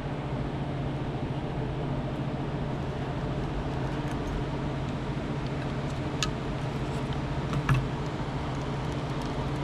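Steady low mechanical hum, with a couple of light clicks about six seconds in and again near eight seconds, as parts of a condenser fan motor are handled while it is being taken apart.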